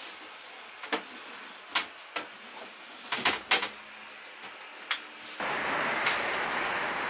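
Wardrobe doors and panels being handled: several sharp knocks and clicks, with a quick cluster near the middle. About five and a half seconds in, a steady rushing noise starts abruptly.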